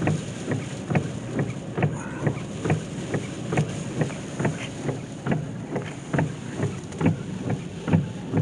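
Heavy wind-driven rain pelting the roof and windshield of a car, heard from inside the cabin as a fast, irregular patter of sharp taps over a steady gusty wind rumble.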